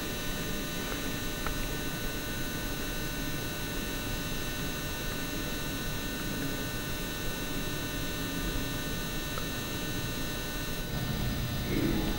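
Steady electrical hum with a thin high whine over room tone, with a few faint small ticks.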